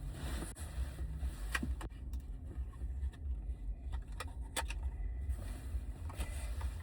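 Packaging being pulled open by hand: a few small sharp clicks and crinkles over a steady low rumble of handling noise.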